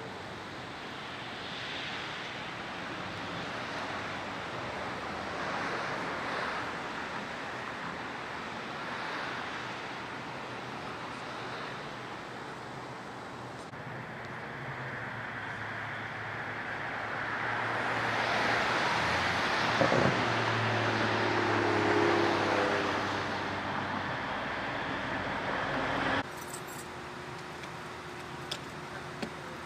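Street traffic: a steady wash of cars passing, swelling as a louder vehicle with an audible engine hum goes by about two-thirds of the way through. The sound drops off suddenly near the end.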